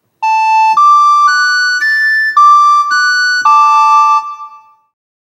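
A short keyboard jingle: a melody of seven quick notes, about two a second, ending on a chord that rings and fades away.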